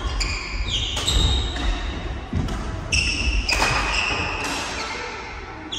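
Badminton rackets striking a shuttlecock several times in a doubles rally, the hits sharp and echoing in a large hall, with shoes squeaking on the wooden court floor between strokes.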